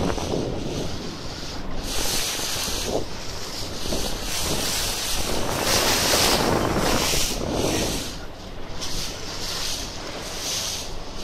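Wind buffeting the microphone on a moving boat, rising and falling in gusts, over water rushing past the hull and the low, steady hum of the boat's motor.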